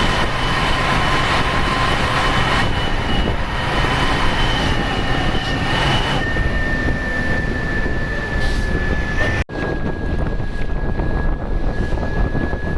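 Ashok Leyland BS-3 turbo-intercooled diesel bus engine pulling uphill, with a steady high turbocharger whistle over the engine and road noise. The whistle drops to a lower pitch about six seconds in, and the whole sound cuts out for an instant about nine seconds in before the whistle carries on.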